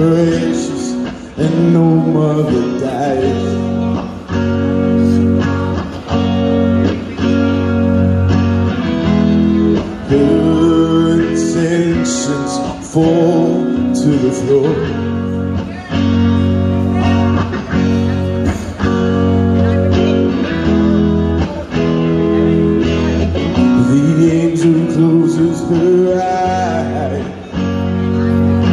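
A man singing a slow rock ballad live into a microphone over guitar-led backing music, played through a PA.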